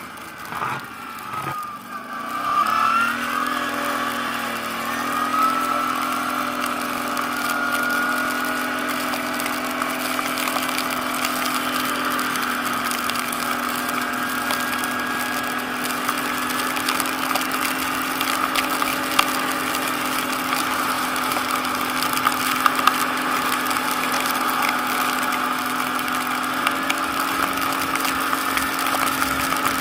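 ATV engine revving up about two seconds in, then running at a steady speed.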